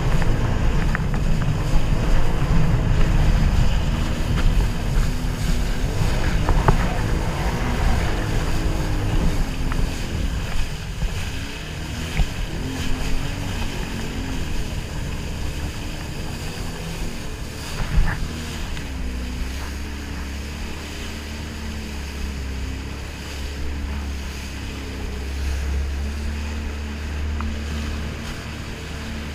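Sea-Doo jet ski's engine running under way, its pitch wavering up and down with the throttle, mixed with wind rushing over the microphone and water spray. Louder in the first ten seconds or so, then easing off.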